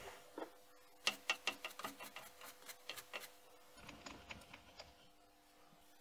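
Light clicks and taps, a few a second, of small metal parts being handled, dying away about five seconds in, over a faint steady hum.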